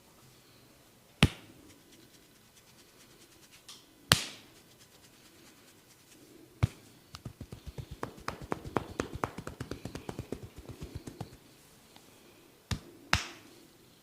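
Hands striking a head during a barber's percussive head massage: three single sharp slaps, then a fast run of tapping, about nine taps a second, for some four seconds, and two more quick sharp slaps near the end.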